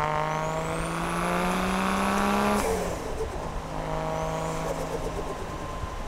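Turbocharged 1JZ straight-six of a Toyota Chaser Tourer V pulling under acceleration: the engine note climbs slowly with a rising turbo whistle over it. Both cut off sharply about two and a half seconds in as the throttle is lifted, and the engine then runs on lower and quieter.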